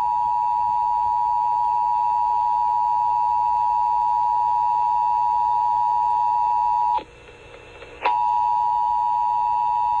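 Emergency Alert System attention signal: a loud, steady two-tone beep just under 1 kHz. It cuts out about seven seconds in for roughly a second, then comes back.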